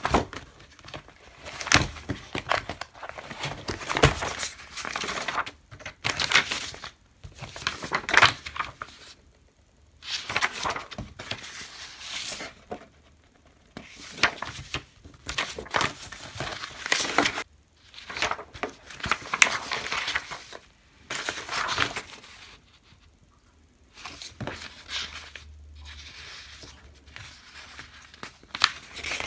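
Paper pages of a spiral notebook and loose printed sheets being leafed through and shuffled, rustling and crinkling in irregular bursts with short pauses between them.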